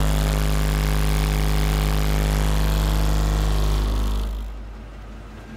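A bank of twelve Shok Triton 12-inch subwoofers in a sealed car, driven by three AP1500 amplifiers, playing a steady, very deep bass test tone (an SPL 'burp'), heard from outside the car with a buzzing edge of overtones. It holds level and then fades out about four seconds in.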